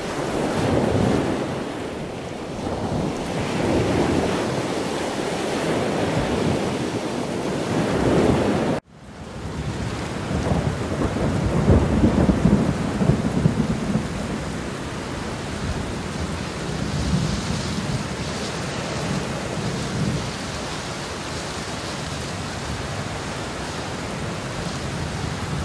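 Thunder rumbling in repeated swells over steady rain. The sound cuts out abruptly about nine seconds in and picks up again at once.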